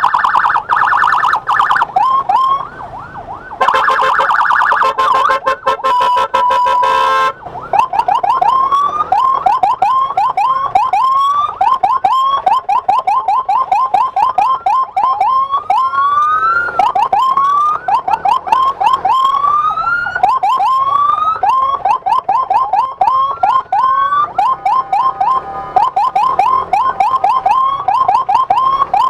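Electronic emergency siren clearing traffic for an ambulance escort. It switches patterns in the first seven seconds, from a fast warble to a pulsing tone, then sounds in rapid upward chirps, several a second, with a longer rising whoop now and then.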